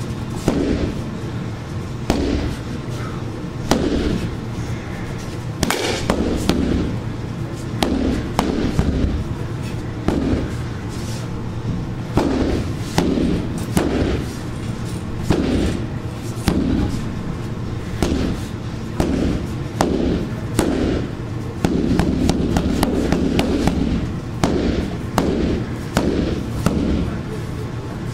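Eskrima stick whacking a freestanding heavy bag: repeated sharp strikes at an uneven pace, roughly one a second, with occasional quick doubles.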